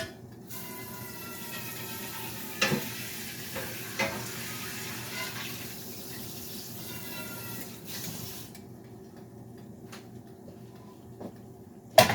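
Kitchen tap running water, shut off abruptly about eight and a half seconds in, with a couple of knocks from pots or dishes and a sharp knock near the end.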